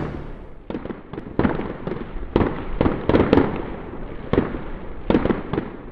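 Fireworks bursting: an irregular series of sharp bangs, about a dozen in all, with crackling in between.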